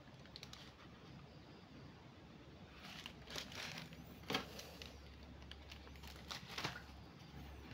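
Faint crinkling of plastic fish bags, a few brief rustles about three seconds in, again near four and a half seconds and twice more around six and a half seconds, over a low steady hum.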